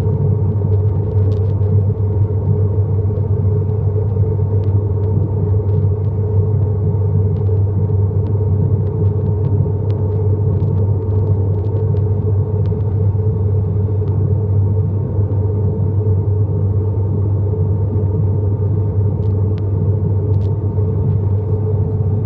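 Steady drone of an ATR 72-600's Pratt & Whitney PW127-series turboprop engines and propellers in the climb, heard from inside the passenger cabin: a strong low propeller hum with a steady higher tone above it.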